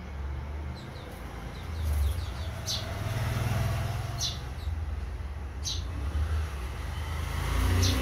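House sparrows chirping: a few short, sharp chirps about every second and a half, with fainter ticking calls before them, over a steady low rumble.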